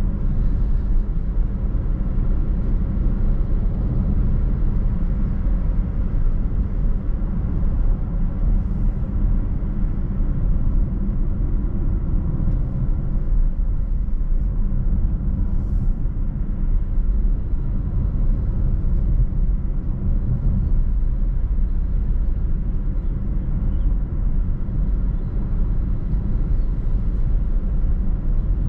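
Car driving at a steady speed: a constant low rumble of engine and road noise.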